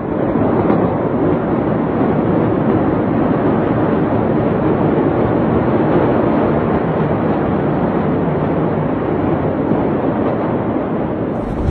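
Steady rushing noise, even in level, with no distinct bangs or voices.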